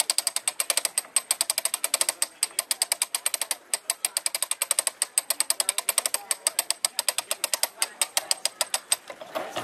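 Ratchet pawl clicking rapidly and evenly as the heavy weight of a drop-hammer coin press is hoisted, stopping shortly before the end.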